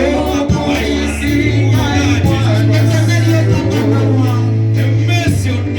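Music with singing: a strong, steady bass line held under wavering voices.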